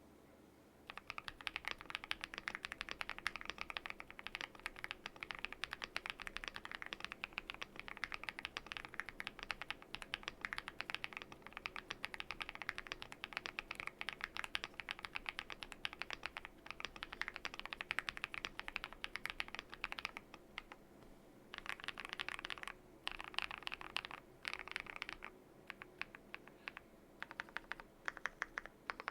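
Typing on a Yunzii AL71 mechanical keyboard with lubed, tape-modded BSUN Hutt linear switches and black translucent Cherry-profile keycaps. It is a fast, continuous run of keystrokes starting about a second in, breaking into a few shorter bursts with brief pauses in the last third.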